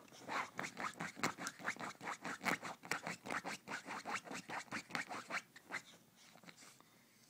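A dog scratching at a couch with its paws: a fast run of scraping strokes, about four a second, that stops about six seconds in.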